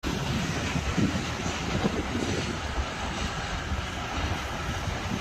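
Moving train running on the track: a steady low rumble with rushing noise over it.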